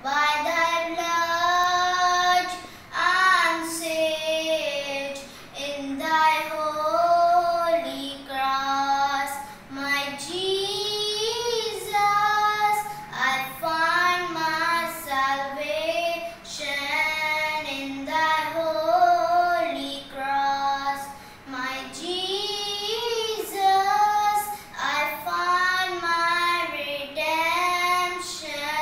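A boy singing a devotional song solo and unaccompanied, in phrases of a few seconds with short pauses for breath between them.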